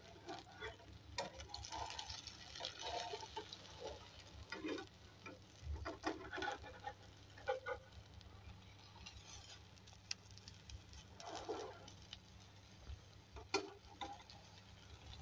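Omelette sizzling faintly in oil in a frying pan, with a metal slotted spatula scraping and tapping against the pan as it lifts and folds the omelette over. A low steady hum runs underneath.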